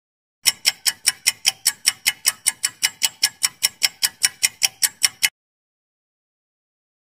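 Countdown-timer ticking sound effect: fast, even clock-like ticks, about five a second, that start about half a second in and cut off suddenly after about five seconds.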